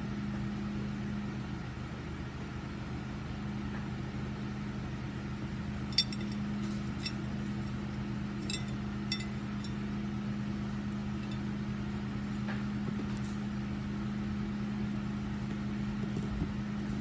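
A metal spoon clinking against a bowl several times in the middle, over a steady low hum.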